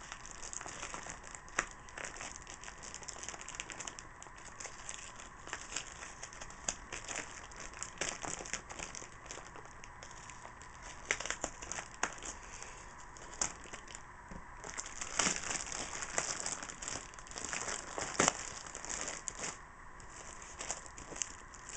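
Packaging crinkling and rustling as it is cut away with a knife and handled, with many scattered sharp clicks and crackles.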